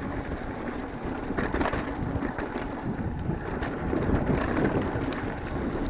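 Mountain bike riding down a dirt singletrack: wind rushing over the microphone and tyres rolling on dirt, with scattered clicks and knocks from the bike going over rocks.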